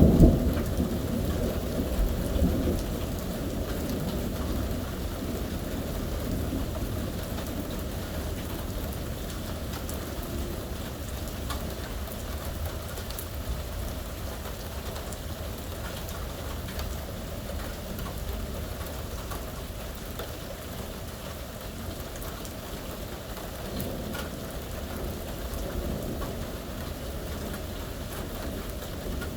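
Steady heavy rain falling on surfaces during a thunderstorm. A loud thunder rumble peaks right at the start and fades over the first few seconds, and a fainter rumble swells briefly near the end.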